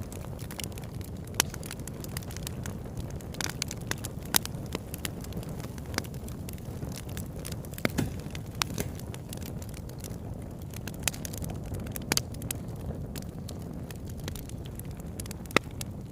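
A crackling fire: a steady low rumble with irregular sharp pops and snaps throughout, a few of them standing out louder.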